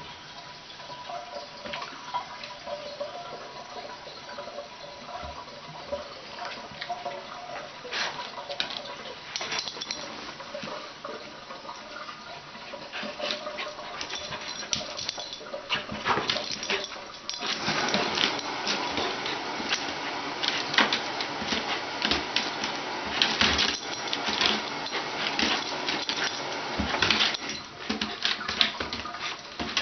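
Wheaten terrier puppy moving and playing on a tiled floor: scattered clicks and scuffles of claws and paws, sparse at first, then busier and louder from about halfway through.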